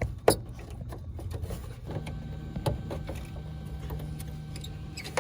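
Scattered clicks, knocks and scraping of a hand working behind a car headlight through the wheel well to twist out the bulb, with one sharp knock near the start. A steady low hum starts about two seconds in.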